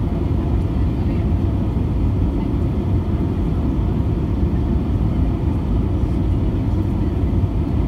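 Airbus A320 cabin noise on the landing approach: the jet engines and rushing air make a steady low rumble.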